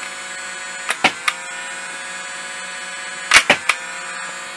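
Electric two-flywheel foam-dart revolver, its small 3.7-volt flywheel motors spinning with a steady whine while darts are fired. Sharp pops come in quick groups of two or three, about a second in and again around three and a half seconds, with the motor pitch dipping briefly after the first shots.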